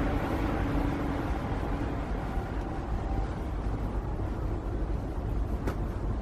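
Traffic noise: a passing vehicle fading away into a steady low rumble, with a single sharp click near the end.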